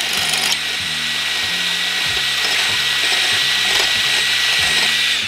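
Hand-held power drill running steadily under load, its bit enlarging a bolt hole in the truck's sheet-steel firewall, with a steady high whine over the grinding; it stops suddenly at the end.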